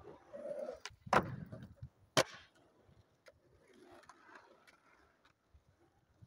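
Two sharp skateboard clacks of the board striking asphalt, about a second apart, followed by the lighter rolling sound of the skateboard's wheels on asphalt.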